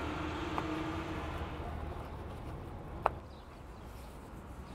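Steady low background rumble of outdoor ambience, with a single short click about three seconds in.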